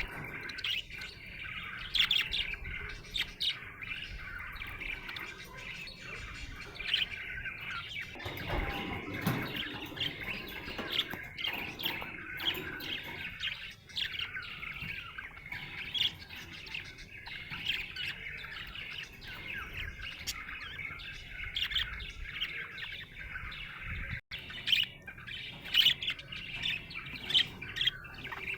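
Budgerigar chirping and warbling in a steady run of quick, closely packed chattering notes.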